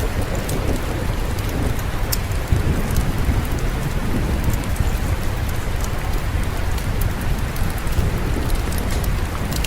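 Steady rain falling with a low rumble of distant thunder underneath and scattered sharp little clicks.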